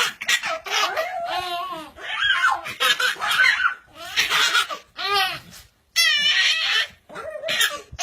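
A baby laughing in repeated short bursts, with a puppy's vocal sounds mixed in among them.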